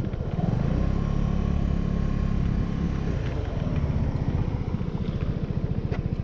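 Suzuki Burgman 200 scooter's engine running while riding along, a steady drone that climbs a little in pitch about half a second in, over road noise.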